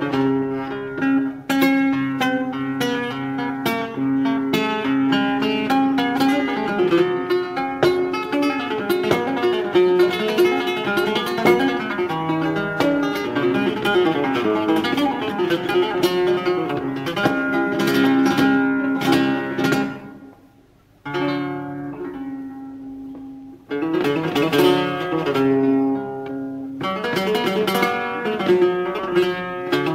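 Solo flamenco guitar playing a siguiriya, with dense runs of plucked notes. About twenty seconds in it drops almost to silence, returns softly, then comes back at full strength a few seconds later.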